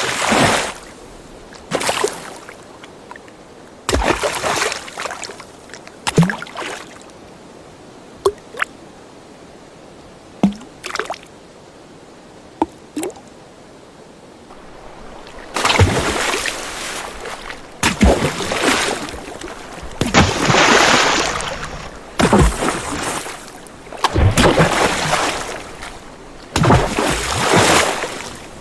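Water sloshing and splashing in irregular surges, as from swimming. In the middle stretch it drops to a few small drips and plops. From about halfway the surges return, louder and roughly every two seconds.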